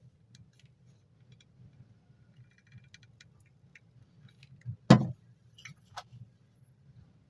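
Light clicks and taps of small craft parts being handled, a 9-volt battery, a small motor and a hot glue gun, with one sharp knock about five seconds in and a lighter click about a second later.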